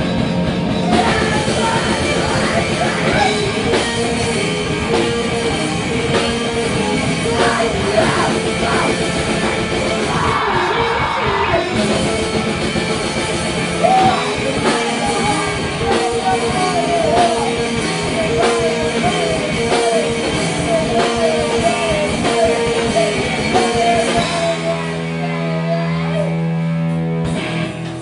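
Live rock band playing: vocals over guitar and drums, with a repeating riff. About 24 seconds in, the beat drops out and a held chord rings on.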